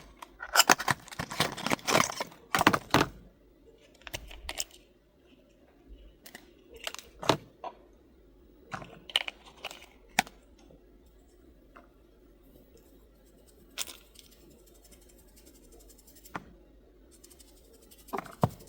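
Packaging being handled and opened: dense crinkling and tearing for the first three seconds, then scattered clicks and light rustles.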